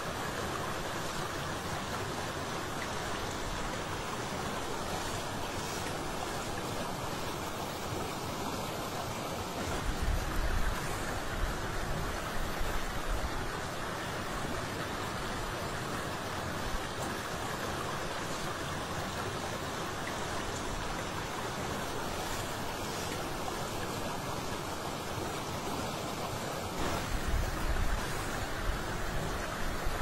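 Steady rushing outdoor ambient noise by open water, with low rumbling bumps about ten seconds in and again near the end.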